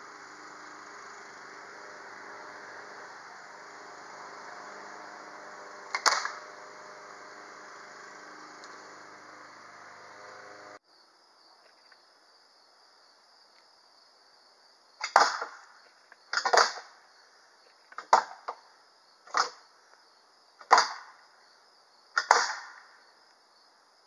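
The metal bar of a homemade salmon ladder clanking down onto the frame's pegs, six sharp strikes about a second and a half apart as it is jumped up the ladder, with one earlier single knock about six seconds in.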